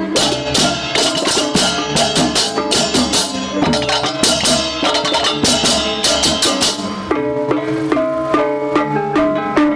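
Balinese baleganjur gamelan playing: fast, dense clashing of hand cymbals with drums and ringing metallic gong-chime notes. About seven seconds in the cymbal clashing stops, leaving the pitched metallic notes repeating.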